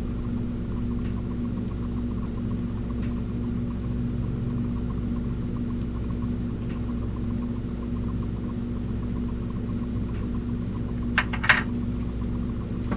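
A steady low machine hum, as of a kitchen appliance or fan running, with a few faint clicks of kitchenware and two sharp clinks near the end. The hum drops away at the very end.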